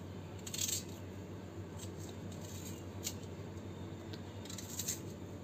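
A knife cutting firm raw green mango flesh away from the stone, a few short crisp cuts spaced out over a few seconds.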